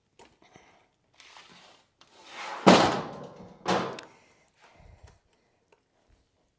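A raw 19-pound turkey set down onto a metal wire roasting rack on a granite countertop: a short rising rustle leads into a heavy thunk with the rack rattling. A second thunk follows about a second later, and there are a few light knocks as the bird is settled on the rack.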